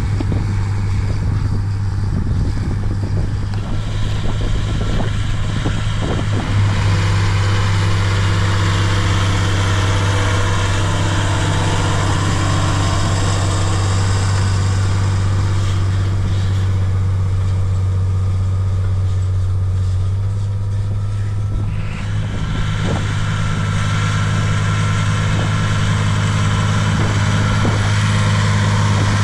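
John Deere 8100 tractor's six-cylinder turbo diesel running steadily under load as it pulls an offset disc harrow through the soil, a deep engine hum over a constant hiss. The engine note changes slightly about two-thirds of the way through.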